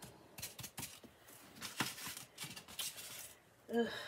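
Faint, scratchy strokes of a paintbrush working paint on a white tray, coming in short irregular dabs. A brief hummed voice sound near the end.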